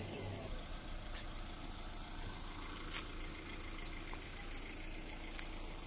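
Steady outdoor background hiss with a watery quality, broken by a few faint clicks; the sharpest click comes about three seconds in.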